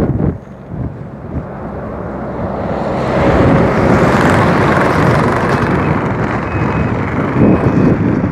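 A heavy tractor-trailer truck passing close, its engine and tyre noise swelling to loudest about three to five seconds in, over strong wind buffeting the microphone. A brief thump right at the start.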